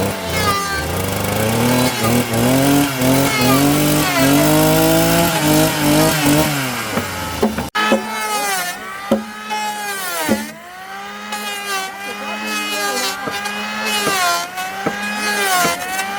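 A handheld power tool's motor working wood. For several seconds it runs up steadily in pitch. After an abrupt break it bogs down and picks up again about once a second as it is pressed into the wood and eased off.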